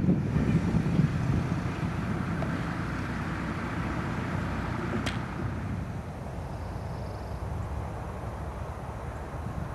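Wind buffeting the microphone outdoors, a low rumble that eases off after about six seconds, with a single sharp click about five seconds in.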